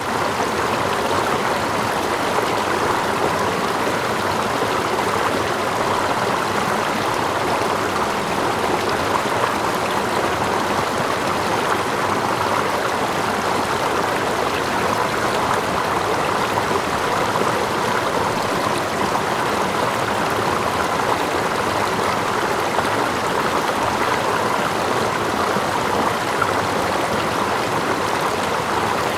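Steady, even rush of a stream's running water, with water lapping close by and a small waterfall further off.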